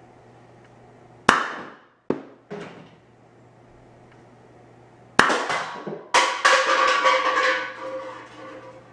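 Homemade pneumatic Nerf Rival pistol, dumping 150 psi air through a quick exhaust valve, firing three sharp, loud pops, with smaller knocks between them. After the last shot a can is knocked off its perch and clatters with a metallic ringing for about two seconds.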